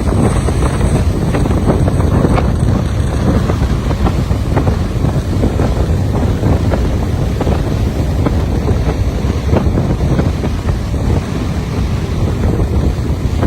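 Strong wind buffeting the microphone, a loud, gusting low rumble, over rough sea surf.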